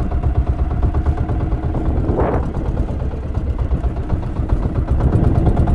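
Outrigger fishing boat's engine running steadily under way, with water rushing along the hull and a brief whoosh about two seconds in.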